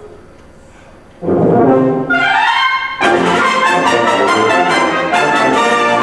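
Concert wind band bursts in loudly with full brass about a second in. A rising slide follows, then sustained full-band chords.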